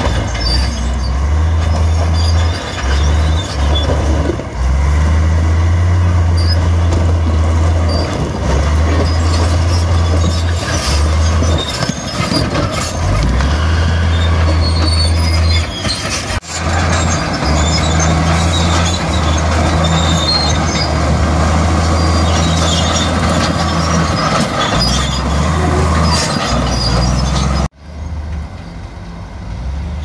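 Komatsu crawler bulldozer working under load: a heavy diesel engine rising and falling, with high squeals and scrapes from its steel tracks and the stones it pushes. The sound breaks off sharply twice, and is quieter after the second break near the end.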